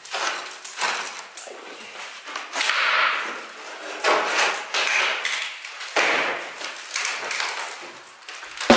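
Old wooden door-frame pieces being wrenched out and handled, giving a series of irregular wooden knocks, clatters and scrapes, with one longer scrape about three seconds in.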